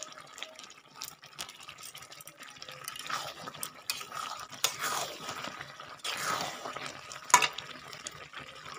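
Metal spatula stirring thick curry gravy in a metal pan: several scraping strokes, with a sharp clink of spatula on pan late on.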